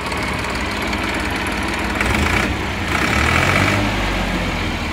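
Massey Ferguson 5245 DI tractor's three-cylinder diesel engine running at idle, just started; its speed picks up briefly twice past the middle. The engine was freshly overhauled with new sleeves and pistons and sounds healthy: "splendid".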